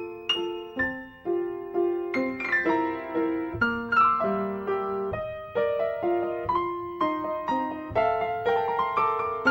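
Piano music: a melody of struck notes, several a second, each fading after it is played.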